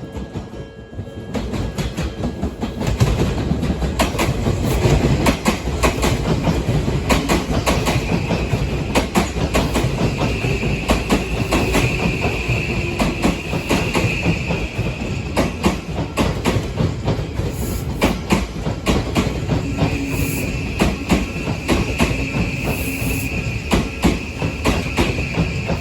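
Odakyu Odawara Line electric train passing over a level crossing, its wheels clattering rapidly over the rail joints. A high-pitched whine rises over the clatter twice, midway and near the end.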